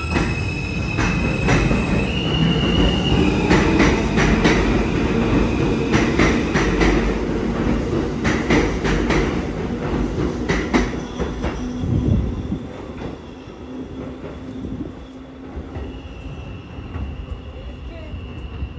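New York City Subway R160 train pulling out of the station. Its motors give a high whine that changes pitch in steps, over the rumble of the cars and sharp clicks of wheels over rail joints. The sound fades about twelve seconds in, leaving a fainter steady whine near the end.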